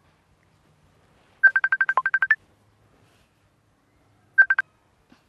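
Smartphone keypad beeps as a message is typed: a quick run of about ten short beeps, one of them lower, about a second and a half in, then three more near the end.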